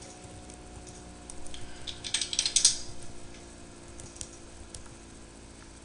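Quick clicking at a computer, bunched together from about one and a half to three seconds in, then a few single clicks, over a faint steady hum.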